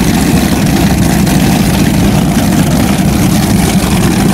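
Offshore racing powerboat's engines idling close by: a loud, steady low rumble.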